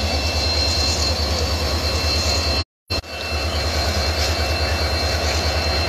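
Locomotive running at idle: a steady, evenly pulsing low throb with a thin high whine. The sound cuts out completely for a moment a little under halfway through.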